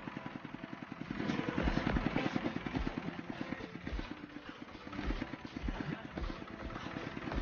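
A small engine running with a fast, even beat, getting louder about a second in.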